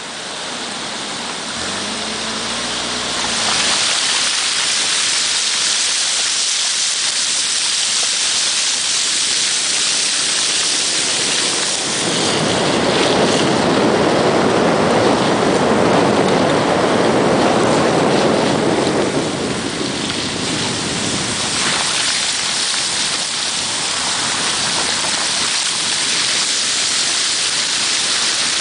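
Heavy thunderstorm downpour, a loud steady hiss of rain. From about 12 to 19 seconds a deeper rushing sound swells up over it and then fades back.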